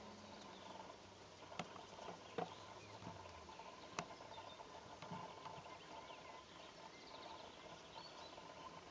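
Faint open-field ambience: scattered distant bird chirps over a steady faint hum, with three sharp clicks about one and a half, two and a half and four seconds in.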